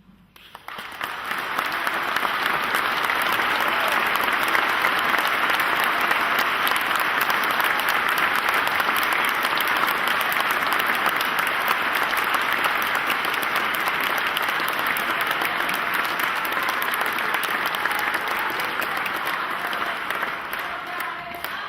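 A large congregation applauding in a cathedral, breaking out just as the new bishop is enthroned, swelling over the first couple of seconds and then holding steady and loud, thinning a little near the end.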